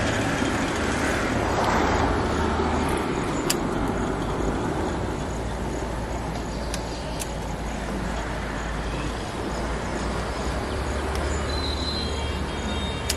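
Steady outdoor rumble and hiss, with a few sharp snips of scissors cutting okra pods off the plant.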